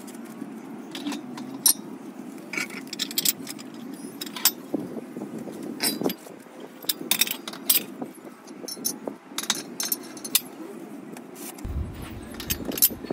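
Iron weight plates clanking and clinking as they are loaded onto a squat rack, with many sharp, irregular metal hits; the weight is added to anchor the rack so it won't slide during the exercise.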